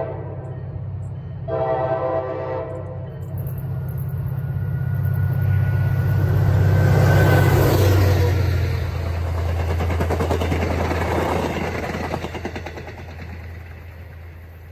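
MBTA commuter-rail diesel locomotive sounding its horn, a short blast and then a longer one of about a second, then passing close by at speed. The engine drone builds to a peak and drops in pitch as the locomotive goes by, and the wheel and rail noise of the train fades away.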